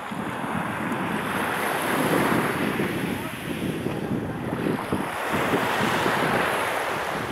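Sea waves washing onto the beach, swelling and fading, with wind buffeting the microphone.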